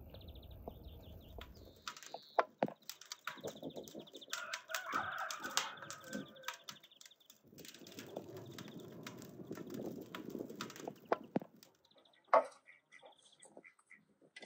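Farmyard chickens clucking and calling, with scattered sharp clicks and knocks; the loudest knock comes near the end.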